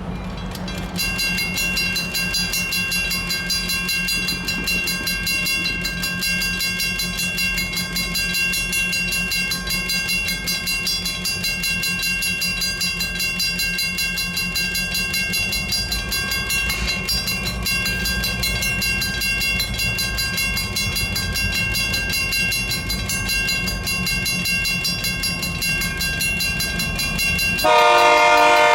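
A pair of EMD GP-series diesel locomotives (Geeps) moving off, their diesel engines rumbling. The locomotive bell rings steadily from about a second in. Near the end the air horn starts sounding loudly.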